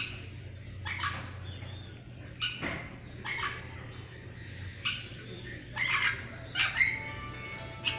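Birds calling in short squawking calls, about one every second. Music comes in near the end.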